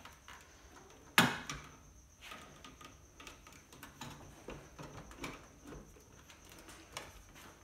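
The plastic control panel of an LG WD12020D washing machine knocking against the cabinet as it is fitted into place, with one sharp knock about a second in, then light scattered taps and rustles of handling.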